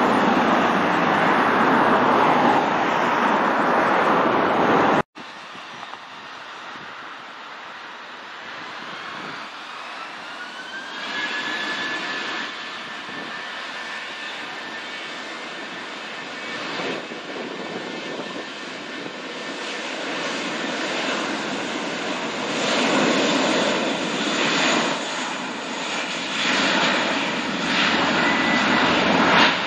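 Jet airliner engines during a touchdown, a loud broad rush that cuts off about five seconds in. Then an Airbus A320-family jet's engines running with a whine that rises in pitch and settles into a steady high tone, the engine noise growing louder toward the end.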